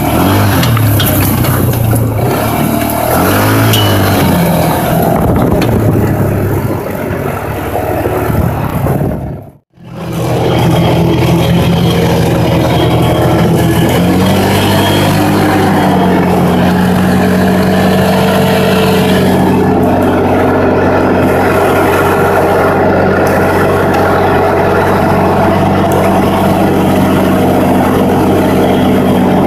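Polaris side-by-side's engine running hard off-road, revving up and down as it drives, heard from on board. The sound cuts out for a moment about ten seconds in, then picks up again as a steadier drone with a few revs rising and falling.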